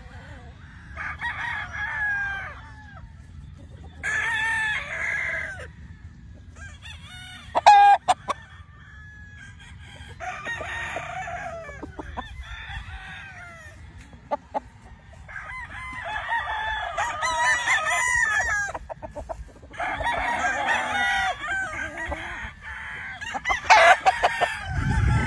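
Gamefowl roosters crowing again and again, about half a dozen crows in turn, some longer and some overlapping, with a short sharp sound about eight seconds in.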